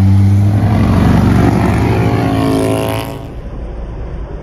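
A car passing close by, its engine note loud and falling in pitch as it goes past. It cuts off abruptly about three seconds in, leaving quieter traffic noise.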